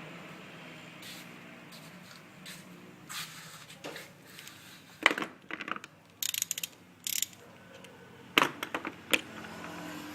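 Metal tools or parts being handled: a series of sharp clinks and rattles, clustered in the middle with two louder clanks near the end, over a steady low hum.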